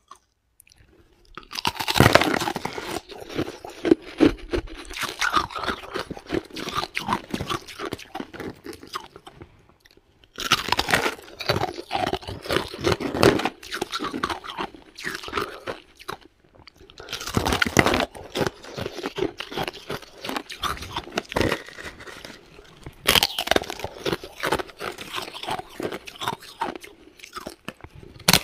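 Ice being bitten and chewed: four bouts of loud crunching, each starting with a sharp bite and running on as dense crackling while the ice is chewed, with short quiet gaps between.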